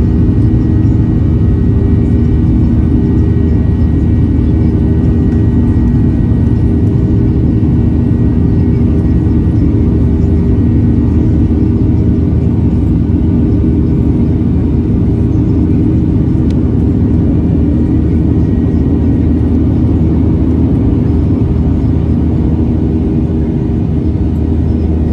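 Boeing 737-700's CFM56-7B turbofan engines at climb power after takeoff, heard from inside the cabin over the wing: a loud, steady rumble with a constant engine hum.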